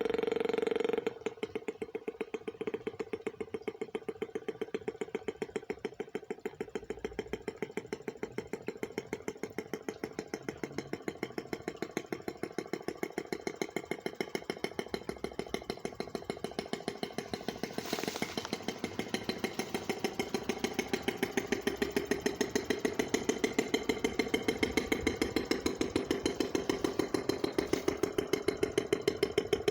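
Small gas engine of an RC boat running. About a second in it drops back to a slow, evenly pulsing idle, then over the last ten seconds it climbs steadily in pitch and loudness. There is one sharp click about halfway through.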